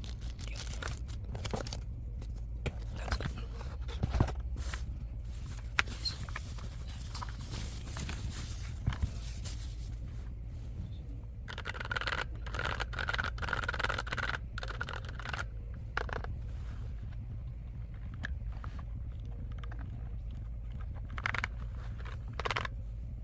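Keyboard packaging being handled: scraping, tearing and rustling of box and wrapping, with scattered sharp clicks and knocks and a longer rustle about halfway through, over a steady low hum.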